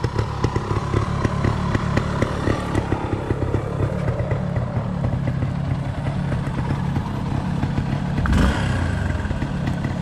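Off-road motorcycle engine idling with a fast, even pulse, briefly louder about eight and a half seconds in.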